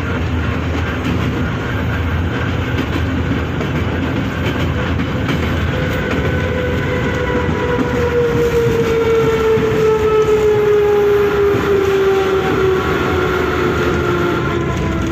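Moscow metro train running, heard from inside the car: a steady rumble of wheels on the rails. From about six seconds in, a motor whine slides steadily down in pitch as the train slows.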